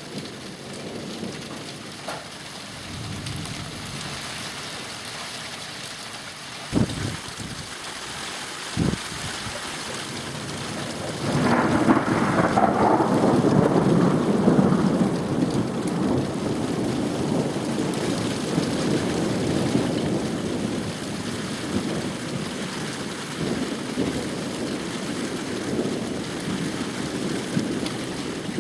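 Thunder: a long rolling rumble breaks out about eleven seconds in, is loudest for the next few seconds, then slowly dies away, over steady rain. Two sharp clicks come a few seconds before the rumble.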